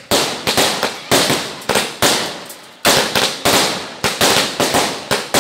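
A Standard 'Speed 100' 100-shot fireworks cake firing shot after shot: a rapid string of sharp bangs, about two or three a second, each one fading off before the next.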